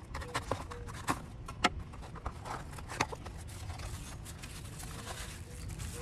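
A folding knife slitting packing tape on a small cardboard box, then the box flaps and contents being opened and handled: a run of sharp clicks and scrapes in the first few seconds, with cardboard rustling about halfway through.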